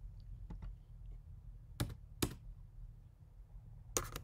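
Keystrokes on a computer keyboard: a few faint taps early, two sharp clicks about two seconds in, and a quick run of clicks near the end.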